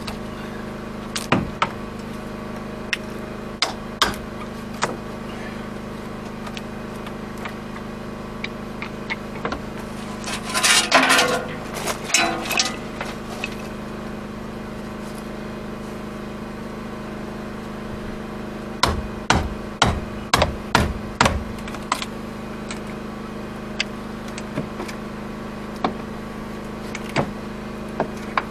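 Lump hammer driving a chisel into rotten wooden hull planking, in scattered single blows. There is a spell of crunching and scraping about ten seconds in and a quick run of blows about two-thirds of the way through, as the old planking and its fastenings are cut out.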